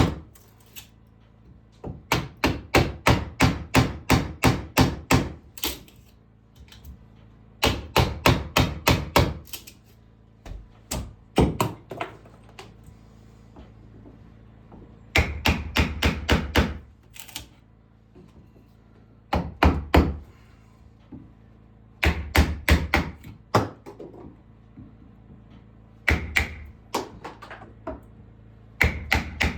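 Hammer striking in quick runs of about five blows a second, each run lasting two to three seconds, with pauses between.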